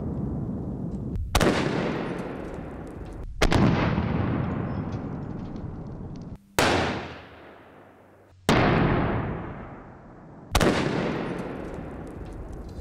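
Five single gunshots about two seconds apart, each a sharp crack that dies away in a long fading tail, fired at the armoured vehicle during a ballistic test.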